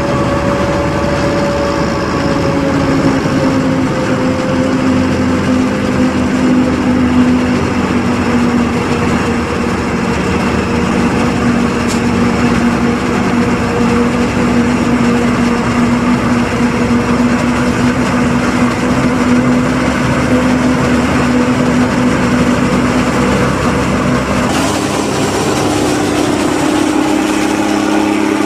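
John Deere 7500 self-propelled forage harvester running steadily under load as it chops corn, a loud engine and chopper drone with a steady tone. The tone steps up slightly about three-quarters of the way through.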